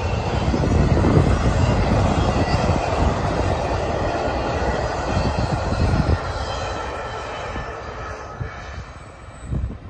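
A double-stack intermodal freight train rolls past with a steady rumble and clatter of wheels on the rails, while wind buffets the microphone. The train noise fades over the last few seconds.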